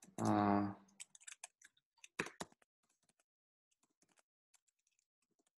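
Computer keyboard being typed on: a quick run of key clicks with a louder cluster a little past two seconds in, then fainter scattered taps. A short vocal sound comes at the very start.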